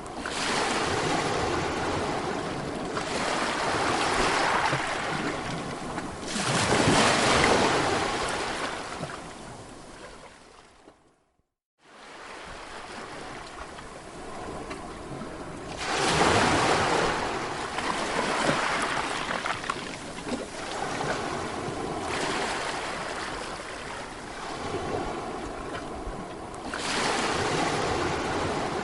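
Sea waves surging and washing in, swelling and ebbing every few seconds. About ten seconds in the surf fades away to a moment of complete silence, then starts again.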